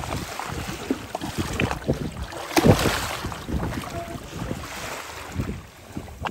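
Water splashing and sloshing against a small boat's hull as a fishing net laden with jellyfish is hauled up by hand, with scattered knocks and one loud splash about two and a half seconds in.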